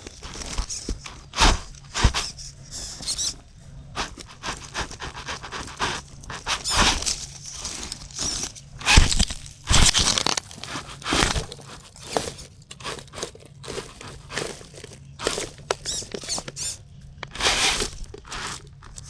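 Axial Capra RC rock crawler working over rough ground: an irregular run of crunching, scraping and squeaking from its tyres and chassis on rock, dirt and brush, with a faint low hum underneath.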